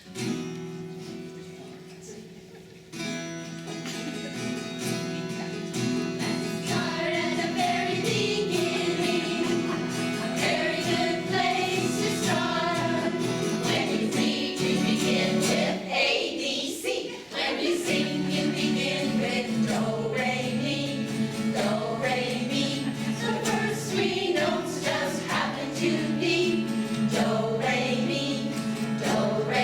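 A small women's vocal group singing a song together in harmony over held low chord notes. The singing comes in more fully about three seconds in.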